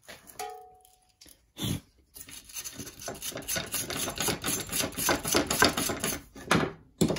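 Rapid, light hammer taps on the nose of a steel chainsaw guide bar, several a second, seating the replacement sprocket tip and its rivets. A short metallic ring just after the start and a single knock come before the run of taps.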